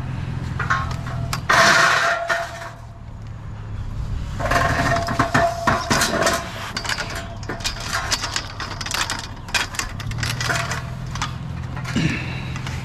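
Metal scrap clanking and rattling as it is handled, with a loud clatter about a second and a half in and a run of clanks a few seconds later. A steady low hum runs under the start and the end.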